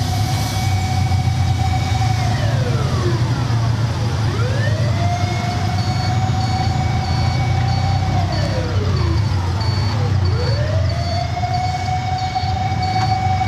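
An emergency-vehicle siren wailing in slow cycles: each cycle rises, holds one steady tone for about three seconds, then falls, about every six seconds. Under it runs the steady low drone of a car driving. From about six seconds in, a faint high beep repeats about twice a second.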